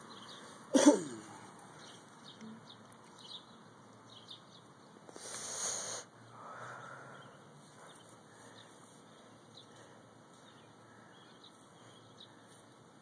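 Small birds chirping faintly and on and off in the background. About a second in there is one loud, sudden, short sound, and around the middle a brief rustling burst.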